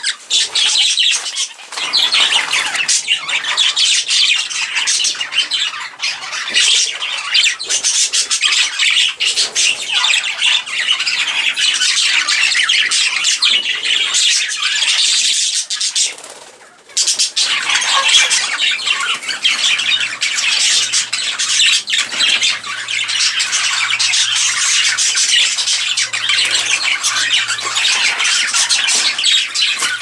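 A flock of budgerigars and other small parrots calling without a break, a dense high-pitched chatter, with a short pause a little past halfway.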